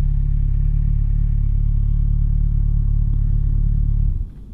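Motorcycle engine idling steadily with the bike at a standstill, then cutting out abruptly about four seconds in.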